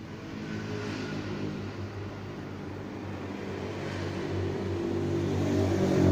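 Enchen Hummingbird cordless detailer trimmer running, its motor giving a steady electric hum that grows louder near the end.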